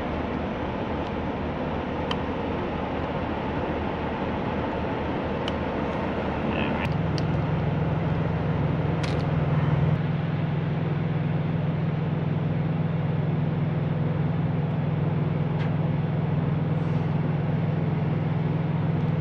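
Steady running of idling truck engines, with a deeper, steady drone coming in about seven seconds in. A few light clicks of pliers and wire connectors being handled sound on top.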